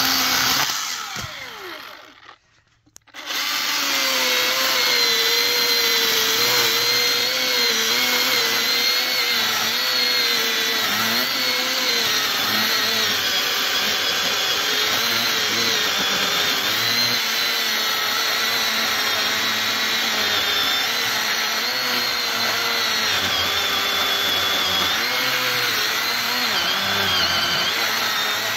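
Milwaukee M18 Fuel cordless chainsaw cutting into an alligator juniper trunk, its electric motor whining with a pitch that wavers as the chain loads up in the wood. About a second in it winds down and goes quiet for a moment, then it runs and cuts steadily again for the rest.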